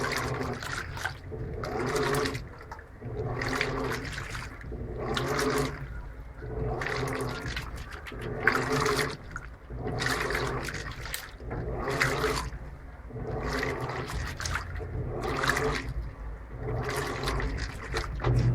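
Electrolux LTP15 top-load washing machine agitating a load of laundry in water: the motor drives the washing action back and forth, churning and sloshing the water in a swell roughly every second and a half. Right at the end a steady low hum starts as the drain pump kicks in.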